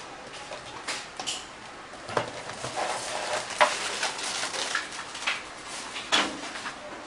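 Moulded plastic packaging tray and its clear lid being handled as a toy helicopter is lifted out: irregular crackles, clicks and light knocks. The sharpest clicks come about three and a half seconds in and again about six seconds in.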